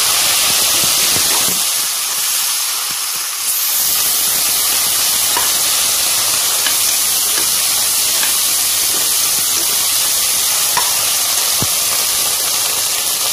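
Chopped tomatoes, onions and green chillies sizzling in hot oil and ghee in an open pressure cooker, stirred with a metal slotted spatula that gives a few light clicks against the pan. The sizzle dips briefly a couple of seconds in, then carries on steadily.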